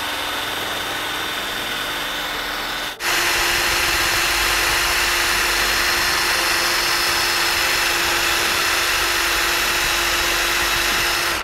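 Cordless drill with a long 12-inch, 3/16-inch bit running at a steady speed, drilling a bolt hole through a flaperon hinge bracket on an aircraft wing. It dips briefly about three seconds in, runs louder after that, and cuts off abruptly at the end.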